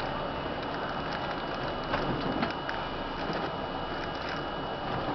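Inside an R-32 New York City subway car at a station: a steady rushing noise with scattered light clicks and rattles, and a faint steady high tone.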